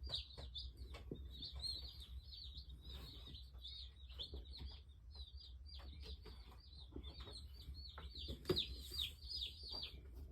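A flock of Cornish Cross broiler chicks peeping without pause, many short high chirps that each drop in pitch, with a few soft knocks over a low steady hum.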